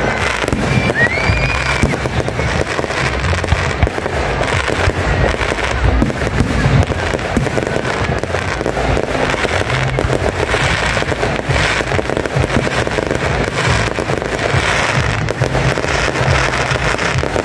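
An aerial fireworks display going off without a break: a rapid, steady barrage of shell bursts, bangs and crackling stars.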